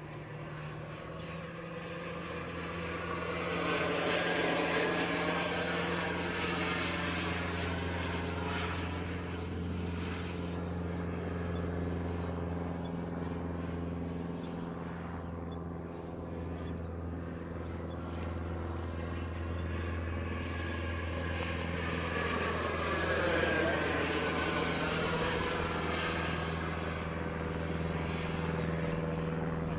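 E-flite F/A-18D radio-controlled jet's electric ducted fan whining as it flies overhead, the whine rising in pitch and growing louder on two passes, about 4 s and 23 s in, with a whooshing sweep as the jet goes by.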